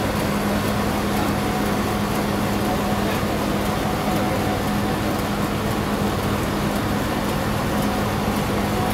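Sawmill machinery running steadily: a constant low hum with no change in pitch or loudness.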